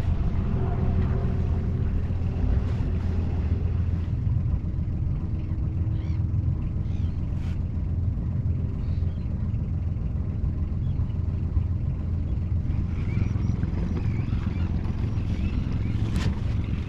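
A sailboat's inboard diesel engine runs steadily under way, with one sharp knock near the end.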